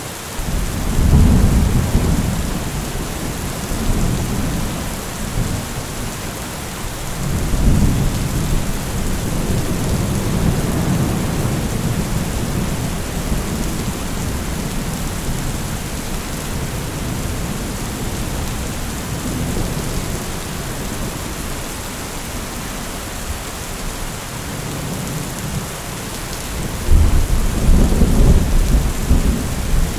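Heavy rain falling steadily, with low rolls of thunder: one rumbling up about a second in, another around seven seconds in, and a louder one near the end.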